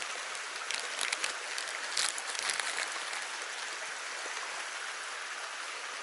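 Shallow stream running steadily over rocks, with crisp plastic packaging crinkling about one and two seconds in as a bag of soft-plastic worms is opened.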